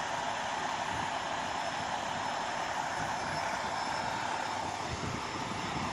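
Steady engine drone with a constant hum from vehicles idling close by.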